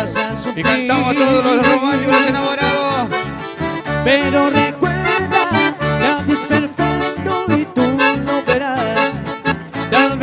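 Accordion-led music with a steady bass beat and no singing.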